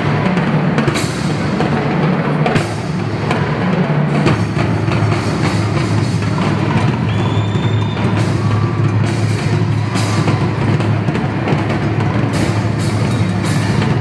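Loud amplified stage music with a driving drum beat and a deep, steady bass.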